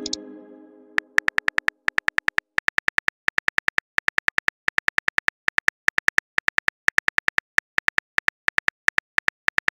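Phone keyboard tap clicks, a quick run of several taps a second with short pauses, as a text message is typed out. At the start a chime-like tone fades away, ending about a second in.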